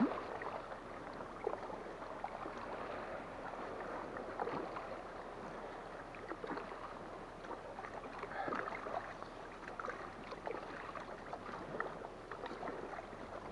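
Kayak paddle strokes in the sea: the blades dip and pull through the water with small irregular splashes and drips over a steady wash of water.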